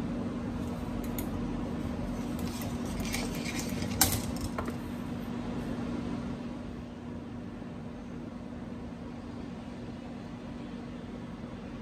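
Steady low hum in a small room, with one sharp knock about four seconds in and a few light clicks around it; the hum drops a little in level after about six seconds.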